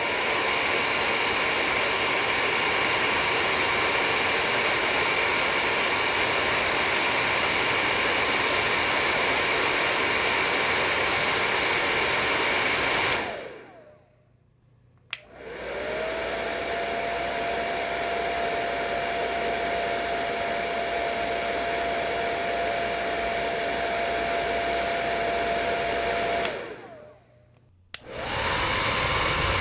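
Hair dryer blowing with a steady whine, then winding down to a stop about 13 seconds in. A switch clicks and it starts again on a lower setting with a lower-pitched whine, runs about eleven seconds, winds down, and after another click starts back up with the higher whine near the end.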